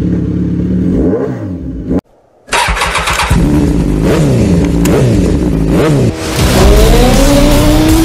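Kawasaki ZX-10R's inline-four engine revving in sharp blips that rise and fall, cut off for half a second about two seconds in, then pulling steadily up through the revs near the end.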